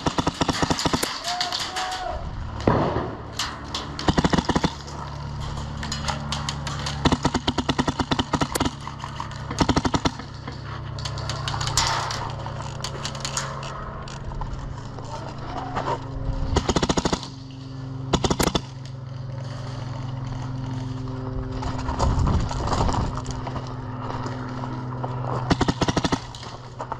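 Airsoft guns firing in rapid full-auto bursts, strings of sharp snapping shots that come and go throughout. A steady low hum runs underneath from a few seconds in.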